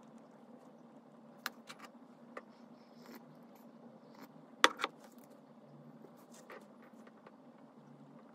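Light clicks and taps of a pen being handled and set down on a paper notebook at a desk, loudest as two sharp clicks a little past halfway, over a faint steady hum.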